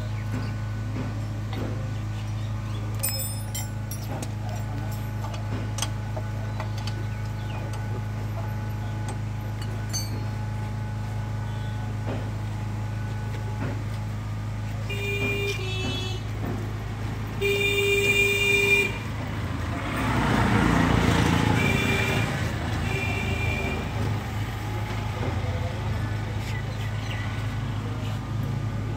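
A vehicle horn toots briefly, then sounds again longer and louder, over a steady low hum. A vehicle passes just after, and a few weaker horn toots follow.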